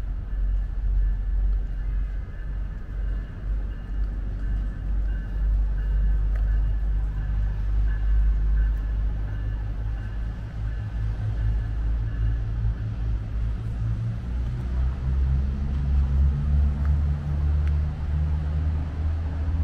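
Low, steady rumble of a motor vehicle engine running close by, rising slightly in pitch about two-thirds of the way through.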